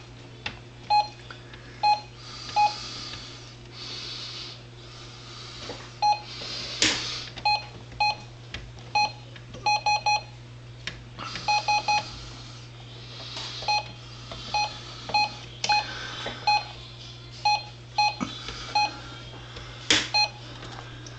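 Key-press beeps from a multifunction printer's control panel as a toddler presses its buttons: short single beeps at irregular intervals, now and then in quick runs of three or four, over a steady low hum.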